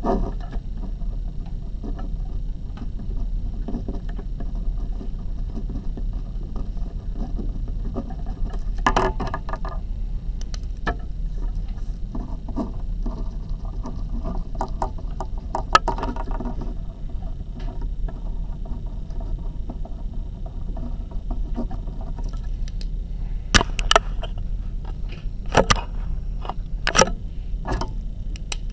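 Pens scratching on paper as words are written, over a steady low hum. Several sharp taps come near the end.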